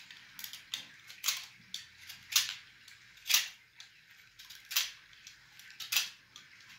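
A utility knife blade shaving wood off a charcoal pencil to sharpen it by hand: a dozen or so short, crisp scraping cuts, one every half second to a second, some louder than others.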